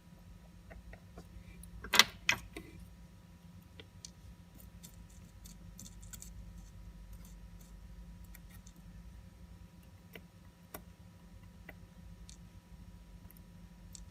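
Small metal clicks and taps from watchmaker's tools handling a manual-wind watch movement and its parts: two sharp clicks about two seconds in, then scattered light ticks over a steady low hum.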